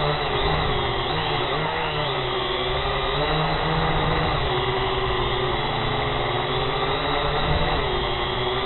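Small camera drone's electric motors and propellers whining, heard from the drone's onboard camera, the pitch wavering up and down with throttle changes and rising briefly near the end as it descends low over the grass.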